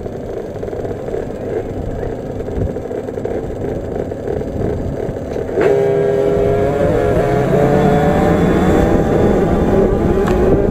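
A pack of 50cc two-stroke minibikes revving at a motocross start gate. A little over halfway through, the sound jumps suddenly as the gate drops and the nearest bike goes to full throttle, its engine pitch climbing as it pulls away.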